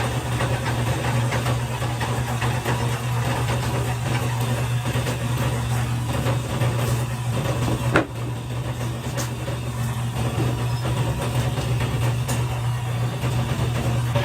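A machine running with a steady low hum, with scattered light clicks and one sharp knock about eight seconds in.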